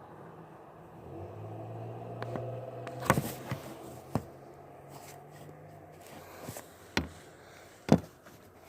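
A cat sneezing: several short sharp sneezes, the loudest near the end, over a low steady hum that fades out about two thirds of the way through.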